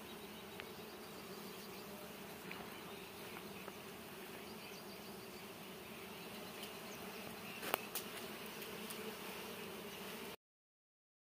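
A swarm of honeybees buzzing steadily around their small exposed comb while the bees are brushed off by hand. There are a couple of sharp clicks about eight seconds in, and the sound cuts off suddenly near the end.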